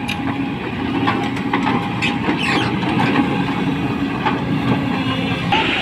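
Heavy diesel engine of a JCB crawler excavator running steadily as it works, with a few sharp metallic clanks from the machine.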